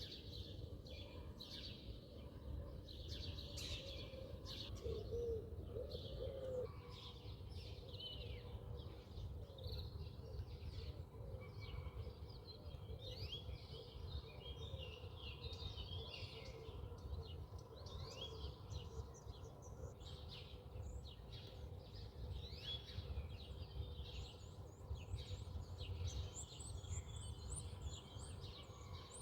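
Birds chirping, with many short high calls repeating, over a faint low rumble and a steady hum.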